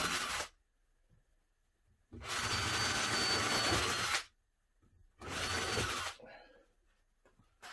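Cordless drill running in three bursts, the longest about two seconds, as it bores pilot holes into the timber and furniture-board cabinet frame.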